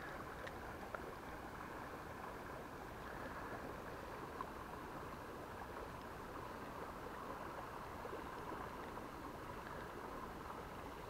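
Faint, steady rush of river water flowing, with a couple of small clicks about a second in and again near the middle.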